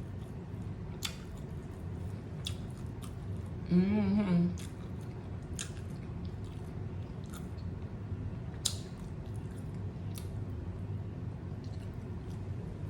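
A person chewing a taco close to the microphone: scattered wet mouth smacks and clicks, with a short hummed 'mm' about four seconds in.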